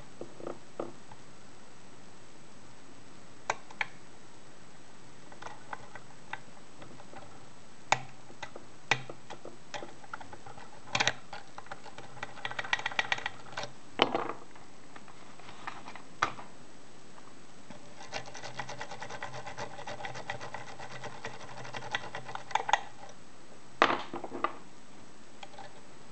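Lock pick working the pins of a Securit six-pin euro cylinder held under tension. Sharp scattered clicks come from pins and the pick, and twice there are stretches of fast rattling ticks as the pick is scrubbed across the pins, the longer one lasting several seconds.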